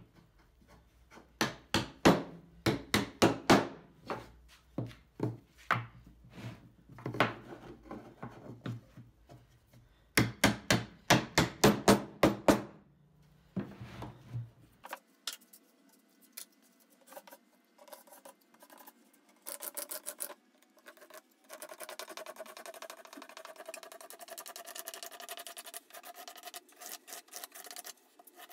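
A small hammer tapping wooden board strips against each other to knock them level, in quick runs of sharp knocks for the first half. After that, a steadier rubbing, rasping sound of hand and wood on the board with a few scattered taps.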